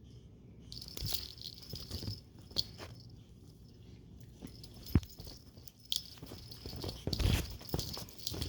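Two pet monkeys scrambling about on their leashes: irregular rustling, clicks and knocks, with one sharp knock about five seconds in and a cluster of louder knocks near the end, over a thin high steady tone that starts about a second in.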